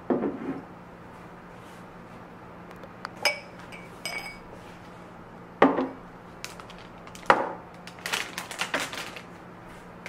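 Tableware set down on a table: a glass jam jar put down with a thump, then glass tumblers clinking twice with a short ring and set down with sharp knocks. Near the end comes a quick crinkly rustle as a plastic bread bag is laid down.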